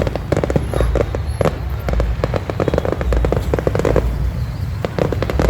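Fireworks display going off in quick succession: a dense run of sharp bangs and crackles over a continuous low rumble.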